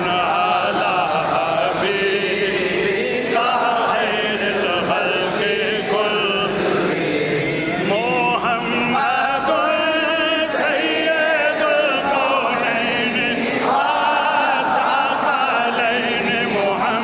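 Religious vocal chanting: a slow, ornamented melody sung in long, wavering held notes.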